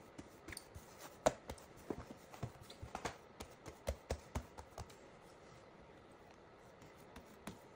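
Hands pressing and patting sourdough bread dough flat on a countertop, pushing out the air bubbles: a string of soft, irregular pats and slaps that thin out about five seconds in, with a couple more near the end.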